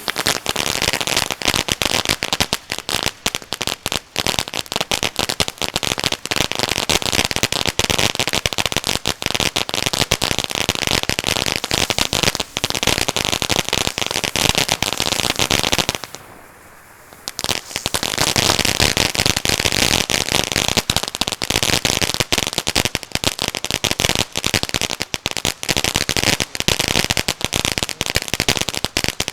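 Puzzle Cube firework fountain burning with dense crackling: a rapid stream of sharp crackles over a steady hiss. It drops out for about a second a little past halfway, then starts again just as strong.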